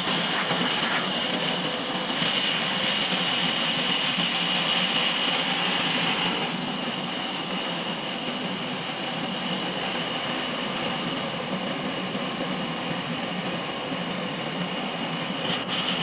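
Band sawmill running and cutting through a large log: a steady machine hum with the hiss of the blade in the wood. The high hiss eases a little about six seconds in.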